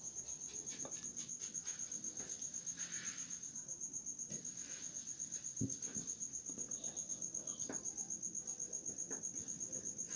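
A cricket chirping steadily: one high, evenly pulsing trill at about eight pulses a second. A soft low knock comes about halfway through.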